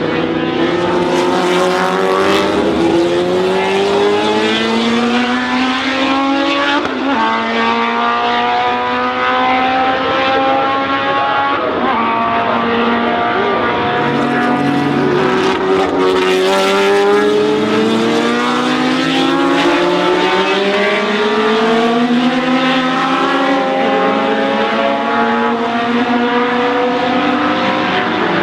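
A 1970s Lola sports-prototype racing engine accelerating hard. Its pitch climbs steadily and drops back at each gear change, several times over.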